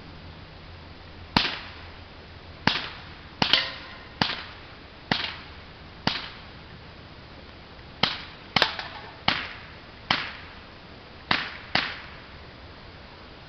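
Walther PPQ CO2 air pistol firing about fourteen sharp shots at an uneven pace, mostly a second or so apart. A few come in quick pairs, and there is a pause of about two seconds in the middle. Each crack dies away briefly.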